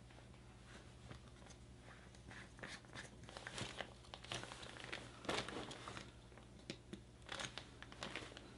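Faint rustling and crinkling of a water-base pillow and its cover being handled while its fill cap is worked open, with scattered soft clicks; the loudest rustle comes about five seconds in.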